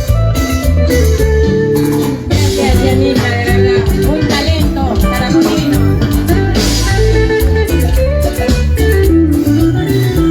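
Loud music with guitar, bass and drums playing a steady beat.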